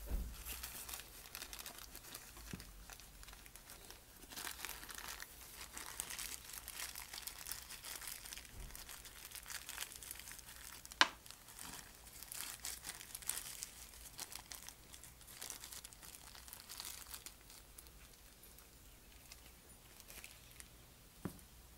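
Irregular crinkling and rustling from hands handling small carburetor parts, with one sharp click about eleven seconds in.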